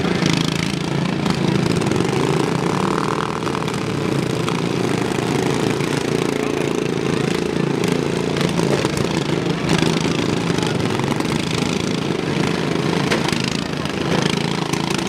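Several riding lawn mower engines running with a steady drone as the mowers drive about the arena.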